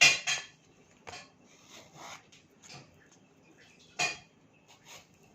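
A kitchen knife working a ripe mango against dishes: a string of short scrapes and clicks, the loudest at the start and about four seconds in.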